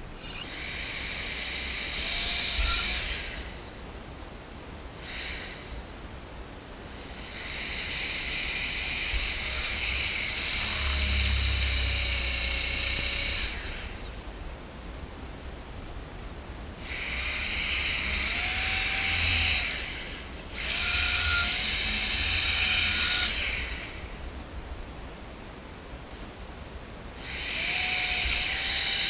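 Corded electric drill boring holes through PVC pipe, running in five spells of a few seconds each with short pauses between.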